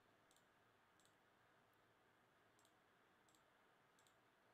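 Near silence with faint, scattered computer clicks, about one a second, from a keyboard and mouse in use.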